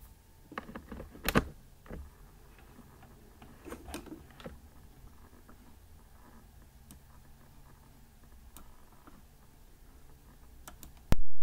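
Scattered light clicks and taps of a boxed action camera and its packaging being handled, with a sharp, loud click just before the end.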